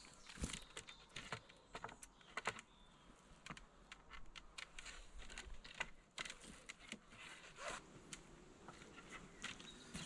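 Faint, scattered light clicks and knocks from hand work at a felled log: a metal gauge frame being handled and set over the log, and footsteps on wood chips.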